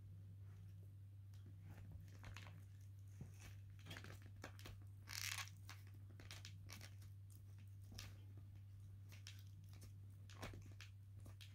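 A teething rough collie puppy gnawing on a rawhide bone: faint, scattered crunching and scraping clicks, with a louder crunchy patch about five seconds in. A steady low hum runs underneath.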